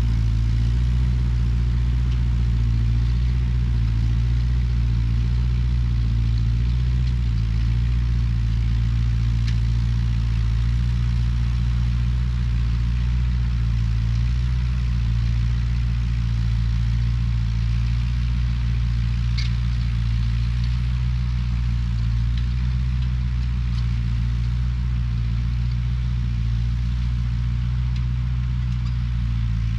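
Ford 8N tractor's four-cylinder flathead engine running steadily at an even speed.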